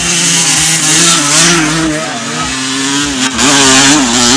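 Motocross dirt bike engines revving hard, their pitch wavering up and down as the throttle is worked.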